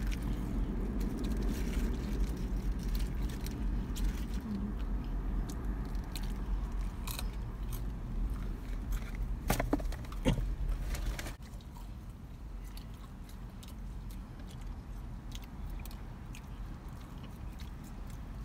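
Close-up chewing and biting of fast food, with wet mouth sounds and sharp crunches, the loudest a pair of crunches about ten seconds in. A steady low hum runs underneath and drops in level about eleven seconds in.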